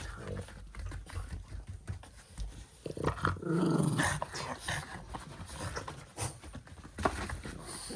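French bulldog growling while holding on to a plush toy, with a louder stretch of growling about three seconds in and scuffling clicks throughout.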